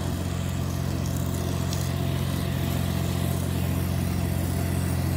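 Small compact tractor's engine running steadily while mowing grass with a rear-mounted finish mower.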